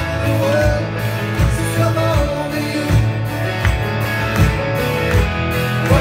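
Live rock band playing, with guitars under a steady drum beat and a wavering lead melody line on top.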